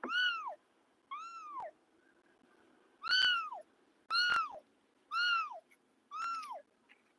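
Young kitten mewing six times in about seven seconds, each high-pitched mew about half a second long, rising and then falling in pitch.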